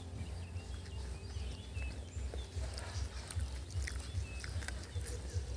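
Outdoor ambience: wind rumbling on the microphone, with short high chirps of small birds scattered through and a few faint clicks.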